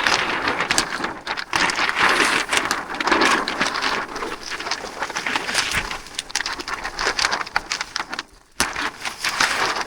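Greenhouse plastic sheeting crinkling and rustling with many sharp crackles as it is pulled down and handled. It pauses briefly near the end.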